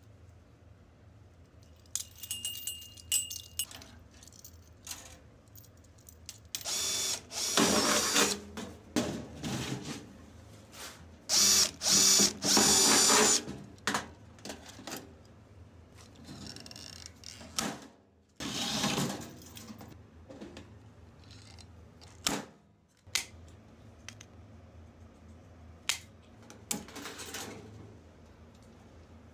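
Metalwork on a sheet-metal can stove: metal chain and parts clinking, with several loud bursts of a power tool, the loudest a broken run of about two seconds near the middle.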